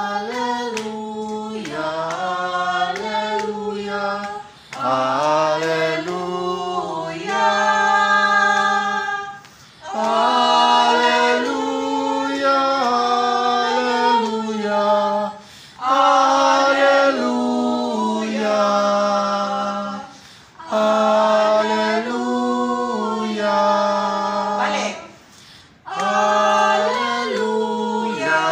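A small choir singing unaccompanied, rehearsing a song for Mass, in held phrases of about five seconds with short breaks for breath between them.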